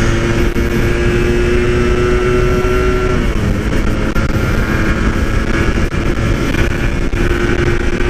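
Two-stroke motorcycle engine running at cruising speed. Its pitch holds and creeps up, drops about three seconds in as the throttle eases or a gear changes, then steadies and slowly climbs again.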